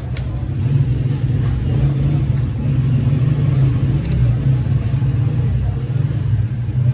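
Steady low rumble, with a sharp click near the start and another about four seconds in.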